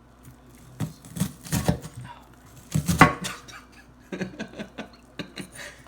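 Knife dicing an onion: irregular groups of sharp chopping knocks, the loudest about three seconds in.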